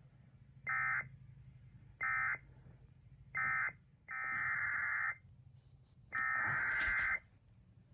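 Emergency Alert System SAME data bursts, a harsh buzzy warble: three short end-of-message bursts about a second and a half apart, then the first two of three one-second header bursts of the next alert, over a low steady hum.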